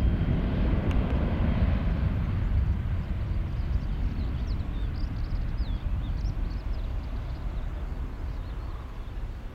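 Boeing 737 twin turbofan jet engines at takeoff thrust during the takeoff roll: a heavy, deep roar that slowly fades as the airliner accelerates away down the runway. Faint bird chirps come through from about halfway in.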